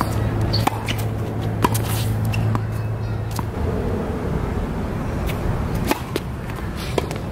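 Tennis ball struck by rackets and bouncing on a hard court: sharp single pops about a second apart during a rally, then a pause and a serve a couple of seconds before the end. A low steady hum runs under the first half and stops about three and a half seconds in.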